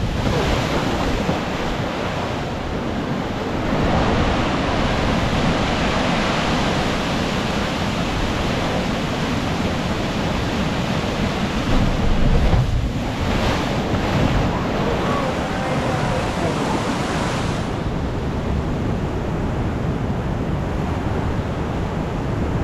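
Ocean surf breaking and washing along a rocky coast, a steady rush that swells about four seconds in and surges briefly about twelve seconds in, with wind buffeting the microphone.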